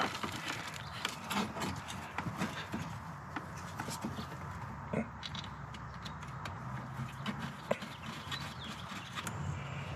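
Irregular light clicks and knocks as the oil catch can and its mounting bracket are handled and fitted into the engine bay, over a low steady hum.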